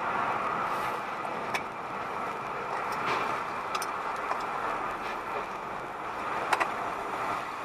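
Steady road and tyre noise of a moving car, heard from inside the cabin through a dashcam microphone, with a few faint scattered clicks.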